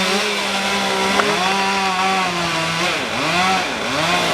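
Two-stroke gas chainsaw running steadily, its revs dipping and climbing back several times, mostly in the second half, as the throttle is eased and reopened during tree cutting.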